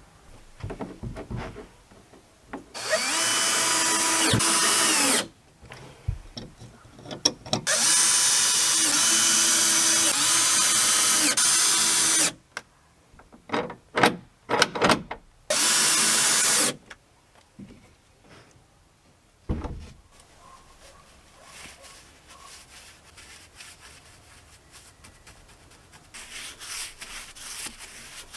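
Cordless drill-driver driving screws into a wooden door to mount a metal latch. It runs in two long bursts, whose pitch climbs as the motor spins up, then in a string of short trigger pulses and one more brief run, followed by occasional light knocks.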